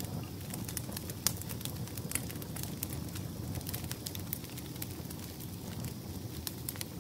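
Wood campfire crackling: irregular sharp pops and snaps, one louder snap about a second in, over a steady low rumble.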